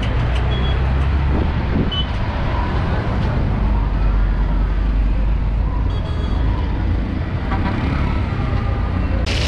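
Street traffic at a busy intersection: the steady low rumble of auto-rickshaw and car engines, with a few short high beeps near the start and about six seconds in. A sudden hiss starts at the very end.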